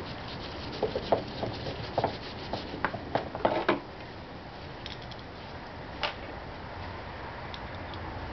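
Phillips screwdriver driving screws loosely into the plastic air filter housing of a Honda Elite 110 scooter. Light scraping and clicking come thickest in the first few seconds, then only a few scattered ticks.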